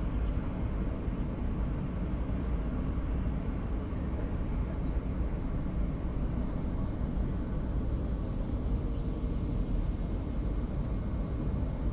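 Steady cabin noise of a Boeing 737-800 airliner on final approach: an even low rumble of engines and airflow, heard from inside the cabin.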